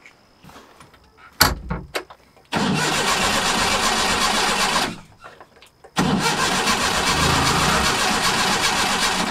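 A knock, then a vehicle engine starting abruptly and running loudly for about two seconds before dying away. A second stretch of engine running starts suddenly a second later.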